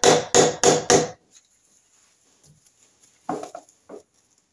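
Light hammer taps on a Norton Commando's alloy primary chaincase to break its seal: four quick sharp taps in the first second, then a few softer knocks about three seconds in.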